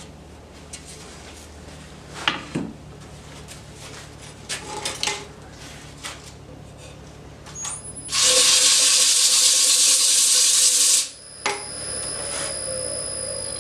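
Workshop tool sounds: a low hum with a few knocks, then a loud hiss for about three seconds that cuts off suddenly, followed by a steady high whine.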